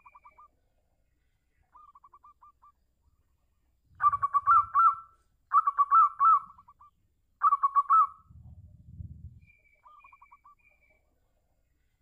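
Zebra dove (perkutut) cooing: a few soft short trills, then three loud phrases of quick, clipped coo notes in the middle, each about a second long. Low dull thumps come with the first loud phrase and just after the last.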